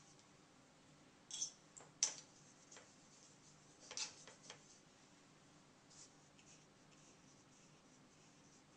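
Watercolour paintbrush working on paper: faint soft brushing strokes, with a few light clicks and taps about a second and a half, two seconds and four seconds in.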